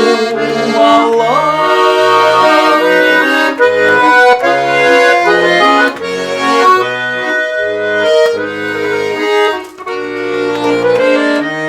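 Russian garmon (button accordion) playing an instrumental interlude between verses: a melody over rhythmic left-hand bass notes and chords. A woman's sung phrase ends about a second in.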